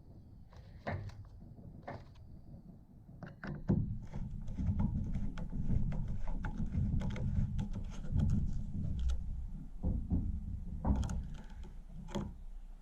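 Clicks, knocks and rubbing of hand work on a chainsaw, parts and tools being handled during disassembly; the sounds come sparsely at first, then thicken into a busy low rumble of handling from about four to ten seconds in.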